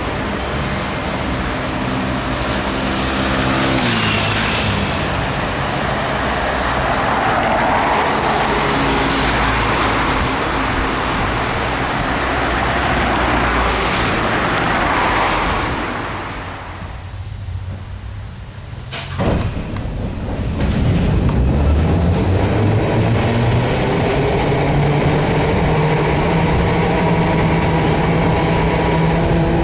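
Street traffic noise with vehicles passing; then, after a cut, the ride inside a vintage Peter Witt-type tram, its motor whine rising in pitch as the car accelerates and then holding steady over the running noise.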